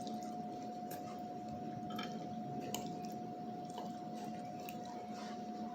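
Close-up chewing of soft glazed salmon and rice, with small wet mouth clicks scattered through. A faint steady hum sits underneath.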